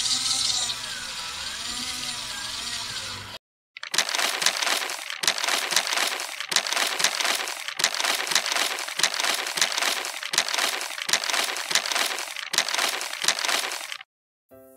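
Paper being crumpled and crinkled: a dense, continuous run of crackles that starts about four seconds in and goes on for about ten seconds.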